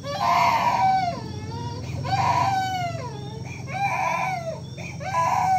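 A baby crying in repeated wails: four cries of about a second each, every second or so, each rising and then falling away.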